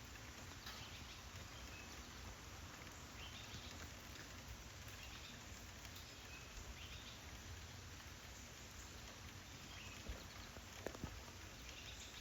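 Steady light rain falling, a faint even hiss with scattered small drips and taps, and a couple of sharper ticks near the end.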